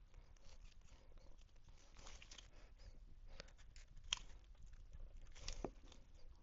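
Faint handling noises: scattered small clicks and light taps over a low room hum, with two sharper ticks, one about four seconds in and one near the end.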